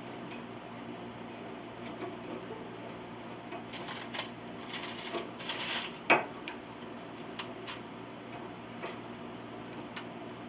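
Small metallic clicks and scraping as a threaded brass insert is worked into a tapped agraffe mount hole in a piano plate, with a sharper click about six seconds in. The insert is binding and does not yet go all the way down.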